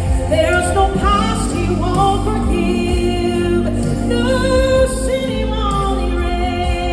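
Gospel singing with instrumental accompaniment and a steady bass, voices gliding between held notes with no clear words.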